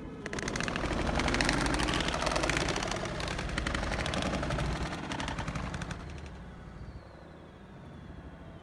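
Pigeon wings flapping in a rapid flutter of clicks that swells and then fades out about six seconds in.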